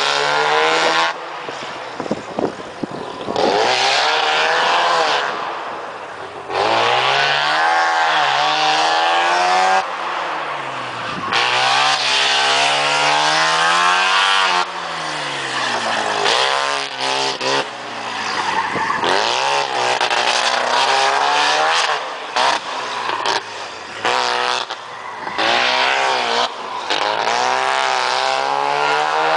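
1984 Mazda RX-7's carbureted 12A rotary engine with an open header, loud, revving up and falling back again and again as the car accelerates and lifts between cones on an autocross course.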